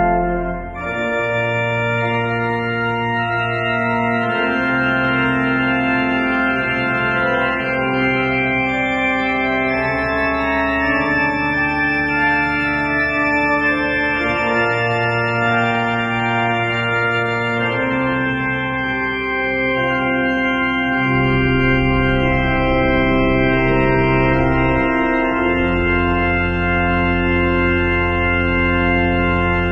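Organ playing a slow succession of held chords over a deep bass line, each chord held for a few seconds before moving to the next.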